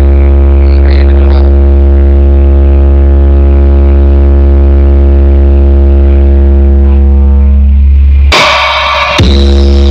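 Very loud sound-system music: a sustained deep bass drone with steady overtones. It breaks off briefly for a hissing burst about eight and a half seconds in, then comes back.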